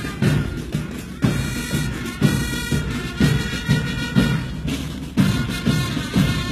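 Marching band music: a bass drum beating about once a second, with lighter beats between, under steady held melody notes.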